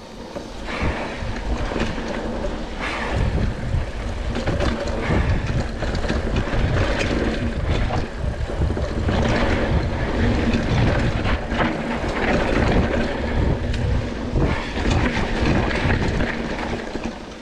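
Mountain bike rolling along a dirt trail: a continuous rough rumble of tyres on dirt, with many short knocks and rattles from the bike over bumps and wind buffeting the microphone.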